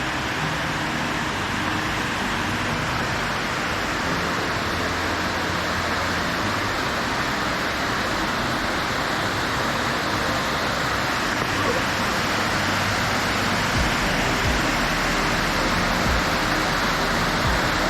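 Waterfall cascade rushing steadily, a constant roar of falling water.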